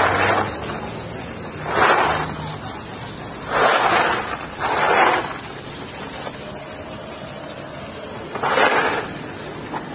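Water from a hose spray nozzle jetting onto freshly hulled walnuts in a plastic crate, washing them. It comes in five short bursts of spray over a steady background hum.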